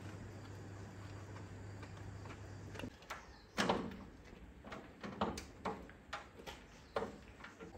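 A steady low hum, then a string of separate knocks, taps and scuffs of hands and a cloth working on a small tractor's metal bodywork and tyre, the loudest a sharp knock just over a second after the hum stops.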